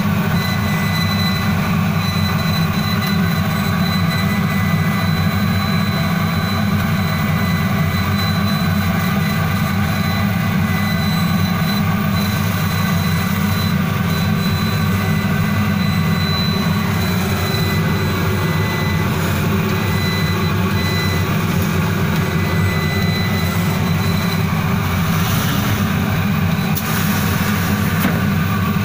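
SpeedLight laser cutting machine running as it cuts corrugated cardboard: a steady machine drone with a thin high whine that stops about 24 seconds in.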